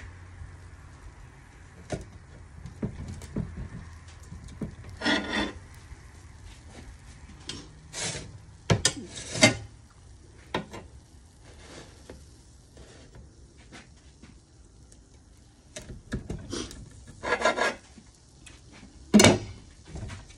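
A large kitchen knife cutting through baked pizza crust, its blade scraping and knocking on the black pan beneath: several short rasping strokes among sharp knocks.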